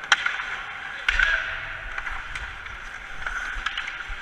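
Ice hockey skates scraping and carving on rink ice, with sharp clacks of sticks and puck a few times, the loudest just at the start.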